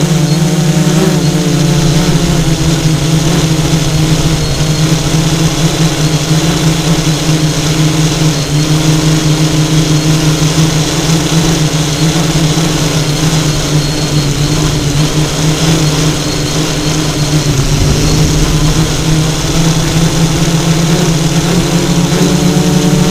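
FPV multirotor drone's electric motors and propellers droning steadily, with a small dip and shift in pitch around two-thirds of the way through.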